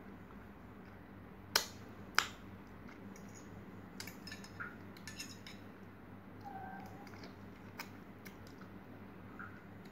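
Metal spoon clinking sharply twice against a ceramic plate about a second and a half in, then lighter clicks and scrapes of the spoon and mouth sounds of eating soft mango, over a faint steady hum.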